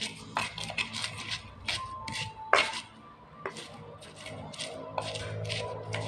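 Stone pestle pounding raw shallot, garlic, kencur and chilli in a stone mortar (Indonesian cobek and ulekan), a knock with a crunch about every half second, pausing briefly near the middle.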